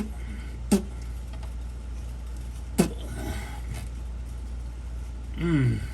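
Sharp knocks of hands and parts under a truck's underbody while a sensor connector is worked into place, then a short falling groan of effort near the end, over a steady low hum.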